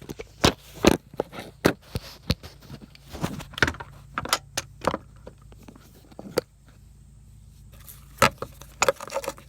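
Handling noise as a phone and tools are set up: irregular clicks, taps and light rattles, with a quieter pause about two thirds of the way through.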